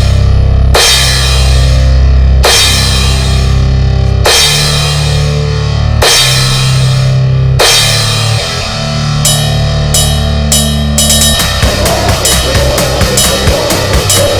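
Loud goregrind recording. Heavy, sustained chords are struck with a cymbal crash about every one and a half to two seconds. About eleven seconds in it breaks into fast, dense drumming.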